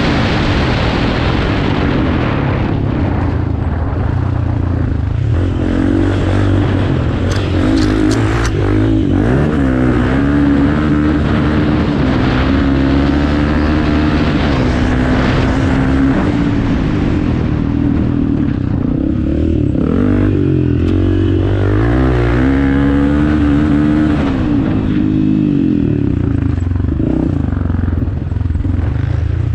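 Off-road motorcycle engine running hard, its pitch rising and falling again and again as it revs up and backs off.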